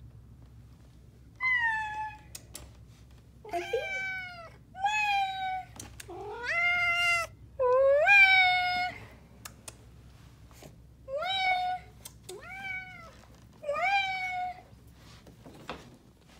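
Domestic cat meowing repeatedly, about eight meows, each rising at the start and then falling away, some short and some drawn out, with a pause of about two seconds midway.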